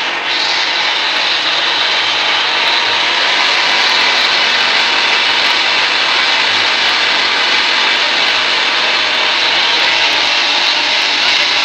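FFC-45 grinding mill (pulverizer) running, a loud steady whirring hiss that holds even throughout.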